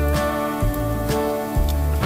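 Background music: an instrumental track with layered sustained notes over a steady, repeating bass pulse.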